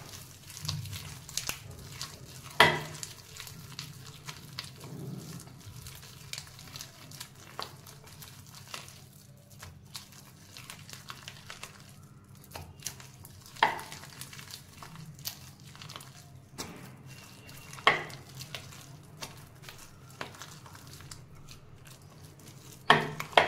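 Ground black-gram (urad dal) batter being mixed by hand in a bowl: soft, wet, continual working of the thick paste with many small clicks and about four sharper clicks.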